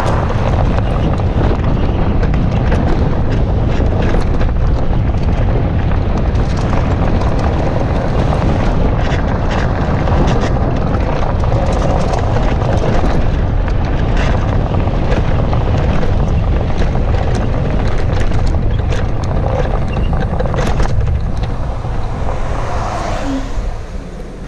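Wind buffeting a camera microphone on a moving Citycoco 1000 W electric scooter, with frequent small knocks and rattles as it rolls over the paving. The noise falls away near the end as the scooter slows.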